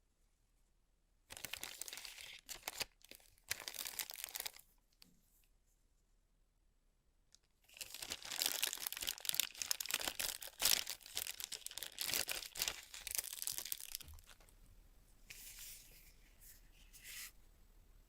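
Keyboard packaging being torn open and crinkled by hand, in two main spells of rustling, the second longer and louder, then a few fainter rustles near the end.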